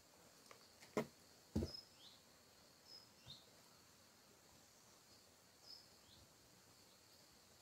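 Faint outdoor ambience with a steady high hiss and a few short, high bird chirps scattered through it. Two soft knocks come about a second and a second and a half in.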